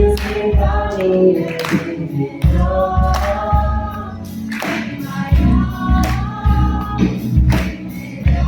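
Live worship music: a group of voices singing together over guitar accompaniment, with a deep pulsing bass beat and sharp hits that are regular.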